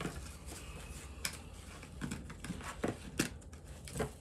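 Rustling of ribbon and paper being handled on a cardboard gift box, with a few short, sharp clicks and taps as the ribbon is pulled loose.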